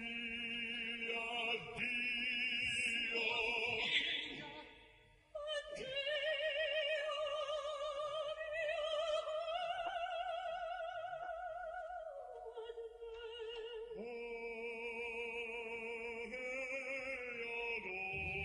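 Operatic soprano and baritone singing a farewell duet in Italian, on long held notes with wide vibrato. After a short break about five seconds in, the soprano holds a high note for several seconds.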